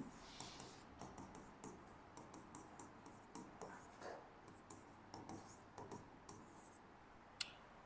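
Faint scratching and tapping of writing, in many short strokes, with a sharper click near the end.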